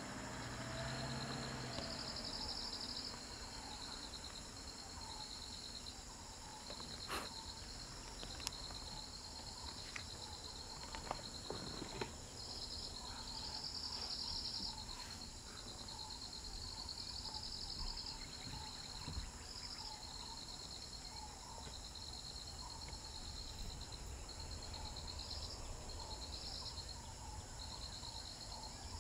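Insects chirping in a steady, pulsing chorus. A few faint clicks and knocks stand out between about seven and twelve seconds in.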